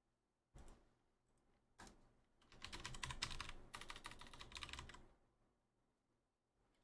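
Typing on a computer keyboard: two single knocks, then a fast run of key clicks lasting about two and a half seconds, which stops about five seconds in.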